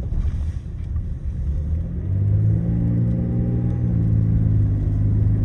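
Car driving, a steady low road rumble heard from inside the cabin; an engine note joins in about two seconds in and holds steady.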